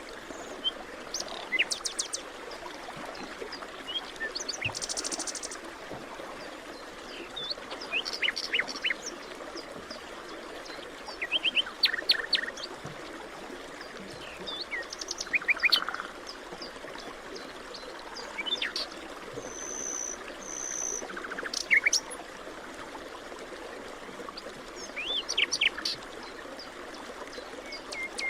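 Several wild birds chirping and trilling in short phrases every few seconds, over a steady rushing background of flowing stream water.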